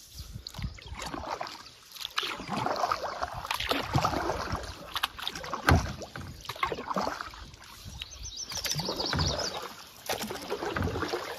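A double-bladed kayak paddle driving a canoe, with repeated swishing, splashing strokes through the water every second or two. There is a sharp knock about halfway through.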